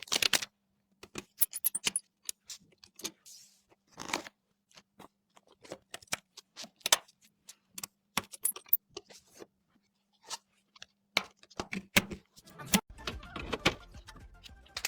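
Irregular sharp clicks, taps and light rattles of computer parts being handled and fitted together, over a faint steady hum that stops about twelve seconds in, after which the handling noise gets busier.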